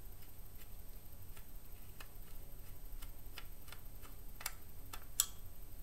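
Irregular small clicks and ticks of a Phillips screwdriver unscrewing a screw from inside a Kodak Brownie Bull's-Eye's plastic camera body, with sharper clicks about four and a half and five seconds in.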